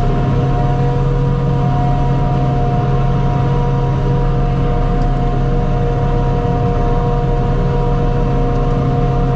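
Farm machinery heard from inside the cab: tractor engine and forage harvester running under steady load at a constant, unchanging pitch.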